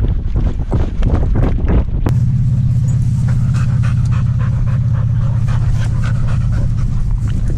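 Siberian husky panting close to a camera mounted on its harness, with grass rustling and scuffing against the mount as it rolls on its back. About two seconds in, a steady low drone sets in under the panting.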